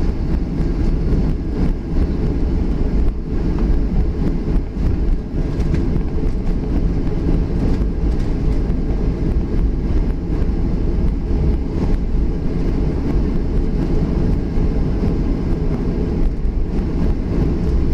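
Cabin noise of a Boeing 737 taxiing after landing: a steady low rumble from the engines at taxi power and the wheels rolling over the taxiway, with light knocks and rattles now and then.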